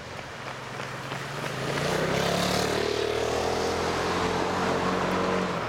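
A motor vehicle's engine running close by. It builds up over the first two seconds to a steady note and cuts off sharply near the end.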